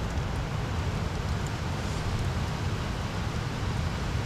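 Screw-on propane-butane canister camping stove burning under a pot: a steady rushing flame noise from the burner.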